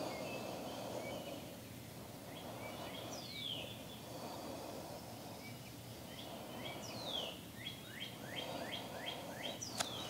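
Slow deep breaths, one about every four seconds, with birds calling: two long falling whistles and a quick run of short chirps near the end. A sharp click comes just before the end.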